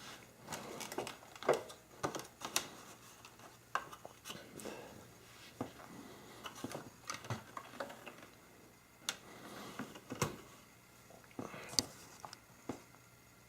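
Irregular plastic clicks, knocks and short scrapes from a Dirt Devil cyclonic vacuum cleaner's parts being handled and taken apart, with the loudest knocks near the start and in the middle.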